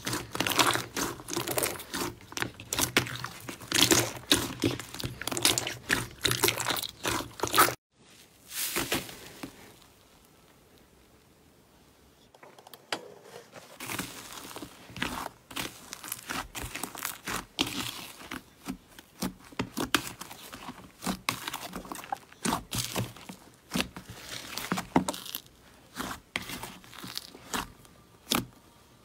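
Slime being squeezed and stretched by hand, making dense crackling and clicking. The sound cuts off abruptly about a third of the way in, stays much quieter for a few seconds, then the crackling and popping start again.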